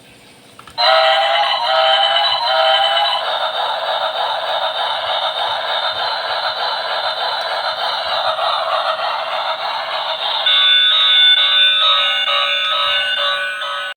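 Thin, tinny electronic music with a synthetic sing-song melody, starting about a second in and turning into a pulsing, repeating beat near the end before cutting off.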